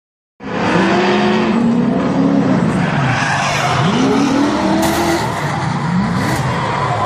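Two drift cars in a tandem slide, their engines revving up and down hard while the tyres skid and squeal. The sound begins abruptly about half a second in.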